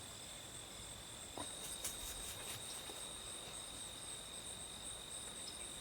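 Insects chirring: a faint, steady high-pitched drone, with a few faint clicks about two seconds in.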